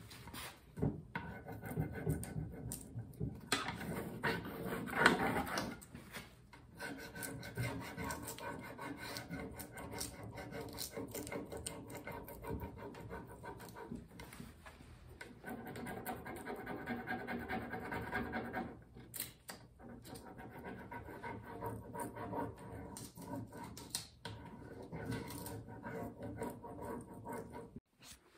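A plastic transfer applicator scraping and rubbing over a rub-on transfer sheet on a painted wooden drawer front. It goes in repeated uneven scratchy strokes with short pauses, burnishing the design onto the paint.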